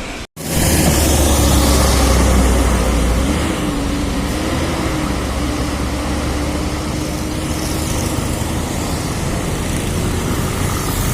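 Bus driving: engine running with road noise. After a split-second dropout at the start, a deep engine rumble is strongest for about three seconds, then settles into a steadier hum.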